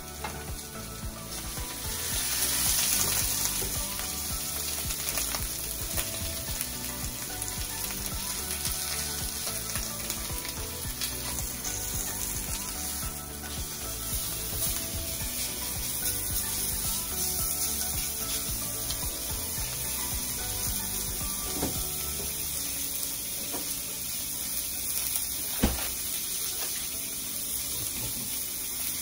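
Steak sizzling as it sears in a ridged grill pan on a gas stove, a little louder a couple of seconds in. A single sharp tap sounds near the end.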